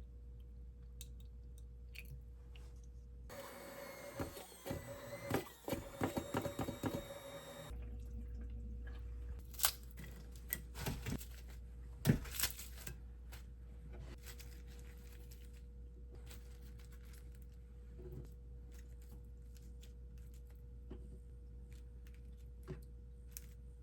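Kitchen handling sounds: scattered light clicks and knocks, with a denser stretch of clattering noise starting about three seconds in and lasting about four seconds, over a faint steady hum.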